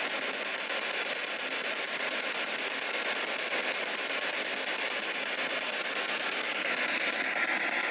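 Spirit box radio scanner sweeping through stations, giving a steady hiss of radio static with no voices coming through.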